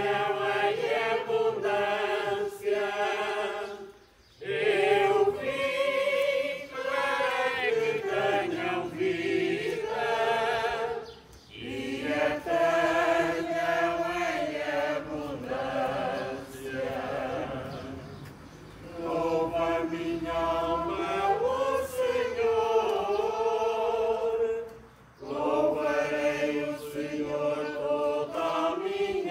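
Unaccompanied singing of a communion hymn, sung in long phrases with short pauses between them.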